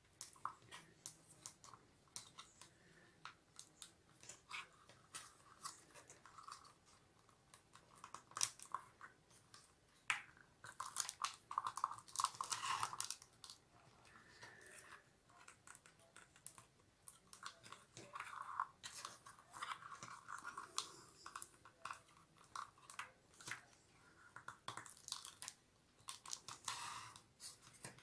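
Rolled newspaper tubes being bent up and pressed by hand against a cardboard base, a faint, irregular crackling and clicking of paper, busiest about halfway through.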